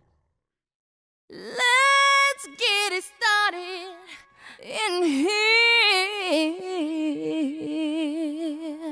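After about a second of silence, a single voice sings alone, sliding between long held notes with vibrato and no instruments beneath it.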